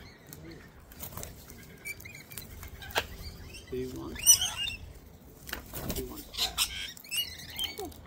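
Parrots feeding at close range, sulphur-crested cockatoos and rainbow lorikeets: scattered clicks and cracks of beaks working peanut shells and seed, with some wing flapping. A short parrot squawk about four seconds in is the loudest sound, and more calls come near the end.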